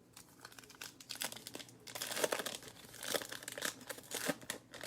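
Baseball card pack wrapper being torn open and crinkled: an irregular run of crackles and rustles.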